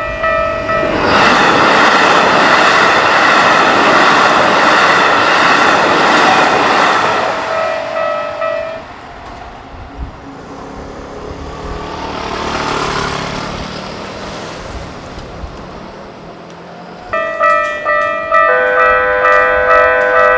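A level-crossing warning bell rings in a steady pulse until a Keikyu Main Line train rushes through at high speed, its loud noise drowning the bell for about six seconds; the bell stops about nine seconds in. After a quieter stretch with a fainter passing rumble, the bell starts ringing again near the end, with a second, different-pitched bell tone joining it a moment later as the crossing warns of the next train.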